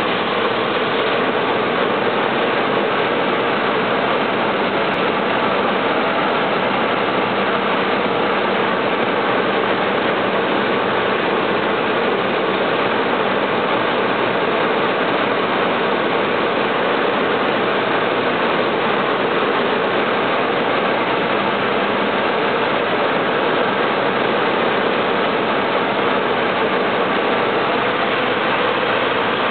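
Light single-engine propeller airplane's engine and propeller running steadily in cruise, heard inside the cockpit together with the rush of air over the cabin.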